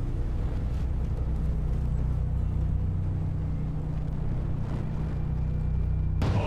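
A low, steady droning rumble, a sustained bass drone from the soundtrack, with no distinct drum strikes. A loud chanting voice cuts in near the end.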